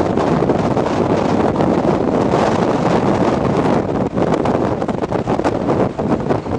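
Strong wind buffeting the camera microphone: a loud, rushing noise that turns gusty and uneven about four seconds in.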